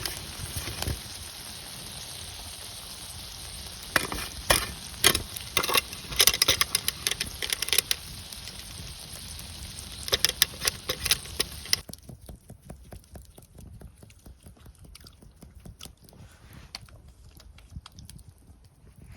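Food sizzling in a frying pan over a campfire, with a utensil clicking and scraping against the pan in bursts. About twelve seconds in, the sizzle stops and only faint scattered clicks remain.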